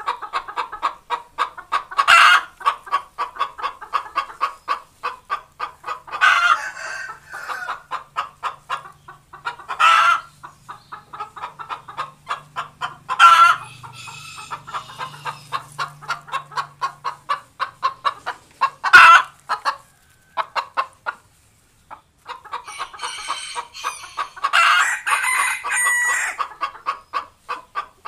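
Hen clucking rapidly, about four clucks a second, broken every few seconds by a loud drawn-out squawk: the cackling call of a hen laying an egg. The calls pause briefly about two-thirds of the way through.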